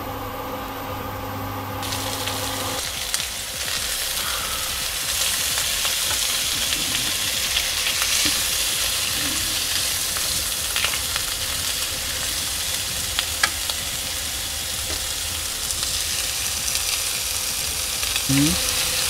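Pieces of fatty pork sizzling as they fry in a frying pan, with a few sharp taps and scrapes from a wooden spatula stirring them. A steady hum underneath stops about three seconds in.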